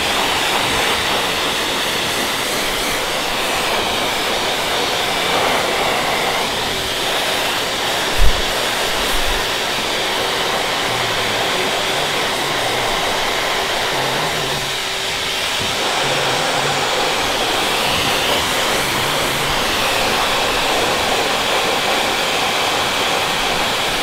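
Steady rush of an air blower blowing through a flexible hose onto a mounted duck skin, fluffing and drying the feathers. A single sharp thump about eight seconds in.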